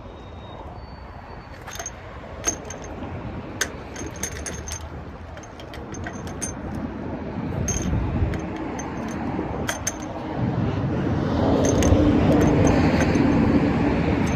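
Metal wrench clinking against the lug nuts of a trailer's aluminum wheel as the nuts are checked for tightness: a dozen or so sharp clinks scattered irregularly. About ten seconds in, a steady rush of passing vehicle noise grows louder.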